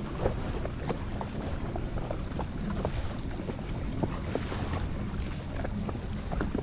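Jet ski engine running steadily at low trolling speed, with water splashing and slapping against the hull in short sharp ticks and wind on the microphone.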